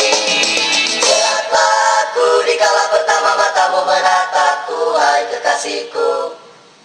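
A song with singing played through a Xiaomi Mi Portable Bluetooth Speaker at the phone's full volume, stopping shortly before the end. At full volume its sound is somewhat rough, in the reviewer's judgement.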